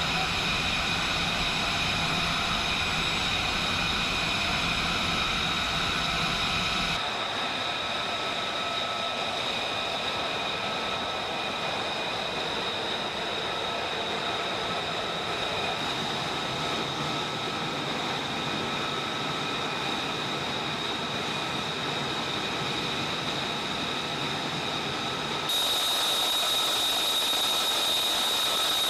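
Steady, high-pitched whine of jet turbine machinery on an aircraft flight line. A low rumble under it drops away about seven seconds in, and near the end the high whine grows louder.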